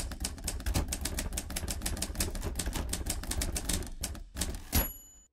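Typewriter sound effect: rapid keystroke clacks, about ten a second, then a couple of heavier clacks and a short ring near the end, like a carriage-return bell.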